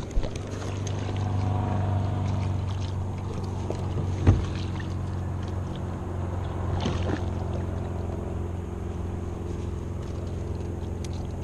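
A motor running with a steady low hum, a little louder for a couple of seconds near the start, with two sharp knocks about four and seven seconds in.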